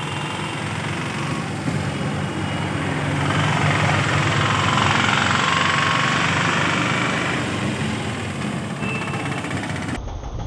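Road traffic: engines running and tyre noise from passing vehicles, swelling as a truck passes close by midway. Near the end it cuts to plucked guitar music.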